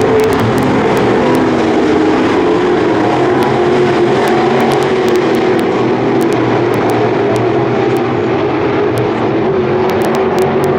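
Several dirt-track race cars' V8 engines running together around the track, a steady blend of engine tones without hard revving or big changes in pitch.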